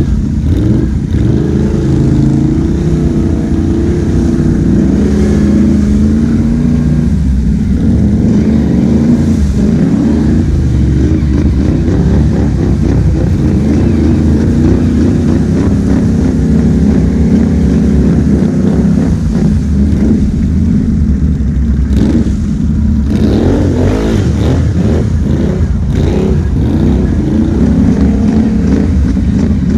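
ATV engine running under load close by as it drives through wet grass, its revs rising and falling, with a few quick rises in revs about three-quarters through.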